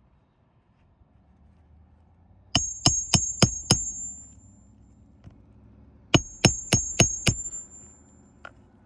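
Hammer striking with a metallic ring, in two quick runs of five blows each, like a nail being driven into roofing. A single fainter knock comes near the end.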